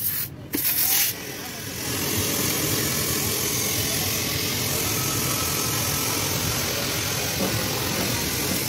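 Compressed air hissing steadily through an air-hose chuck into a large truck inner tube as it inflates, over the low running of an air compressor. Short blasts of air in the first second, then a steady hiss from about two seconds in.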